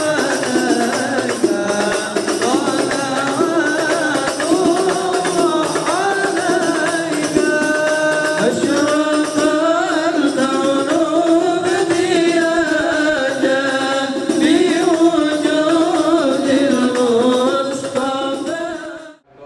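Men singing an Islamic devotional song with ornamented, wavering melodic lines, accompanied by steadily beaten frame drums (rebana). The music cuts off abruptly just before the end.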